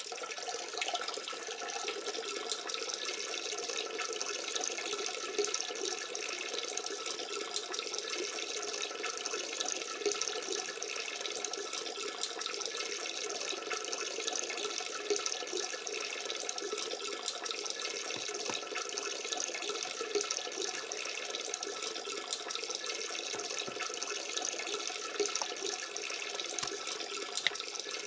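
Water running steadily from a bathroom tap.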